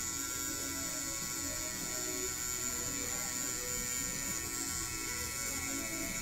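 Scalp micropigmentation pen (rotary tattoo machine) running steadily as its needle cartridge dots pigment into a shaved scalp: a constant motor buzz with a high whine.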